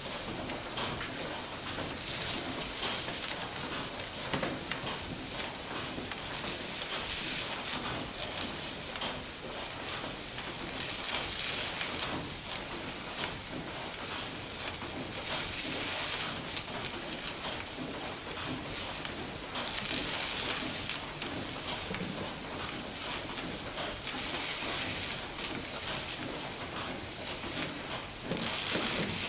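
Woollen mill machinery running: a steady mechanical hiss and rattle that swells about every four seconds.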